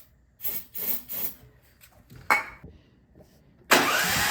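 Short hisses of starting fluid sprayed into the cylinder of a generator engine. Near the end, a sudden loud cranking as the engine is turned over without firing; it sounds like it makes no compression, from an intake valve that has dropped and hit the piston.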